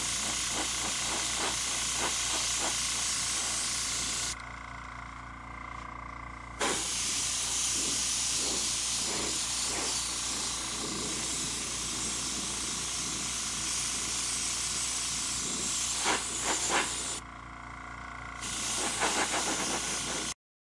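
Airbrush spraying paint, a steady hiss of air that stops twice for a second or two as the trigger is let off. It cuts off abruptly near the end.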